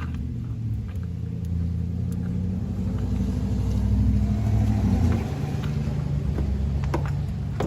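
A vehicle engine running with a low hum that swells to its loudest about five seconds in and then eases off, with a couple of sharp knocks near the end.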